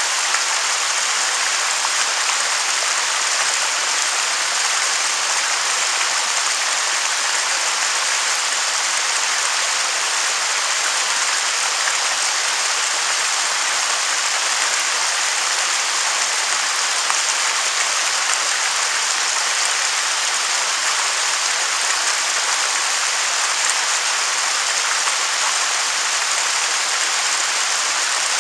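Waterfall's steady rush of falling water: a constant, even hiss, mostly high, with little deep rumble.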